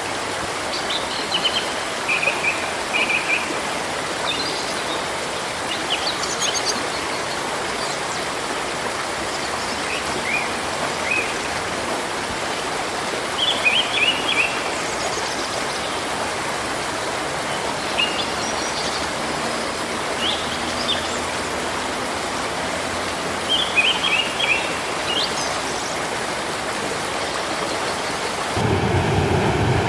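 Steady rush of flowing water, with small birds chirping in short bursts every few seconds. Near the end it changes to a louder, deeper rush of churning white water.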